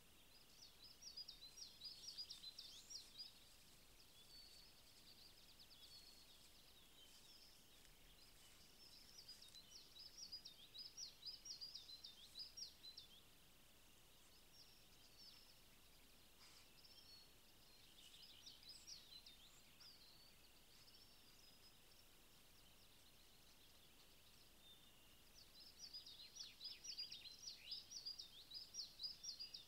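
A songbird singing faintly in four bursts of quick, high, chirping notes, each lasting a few seconds, over a steady faint hiss.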